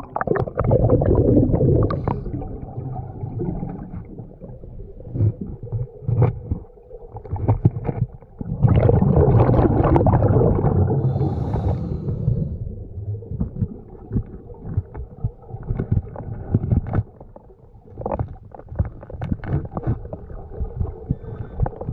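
Underwater bubbling rumble of a scuba diver's exhaled breath from the regulator, one long burst at the start and another about eight seconds in, with scattered small knocks and scrapes between.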